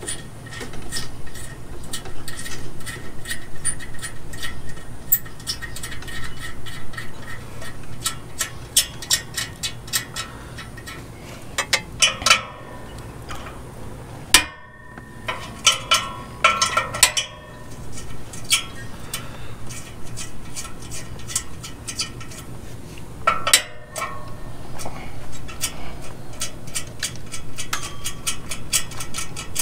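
Hand ratchet wrench clicking in quick runs as it turns a nut on a steel light-mount bracket, broken by a few louder metal clinks near the middle.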